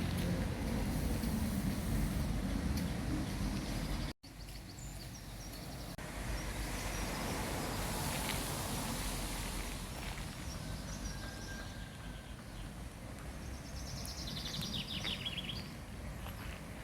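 Outdoor ambience with a steady low rumble, broken by a brief dropout about four seconds in, and small songbirds singing, with a quick run of high chirping notes near the end.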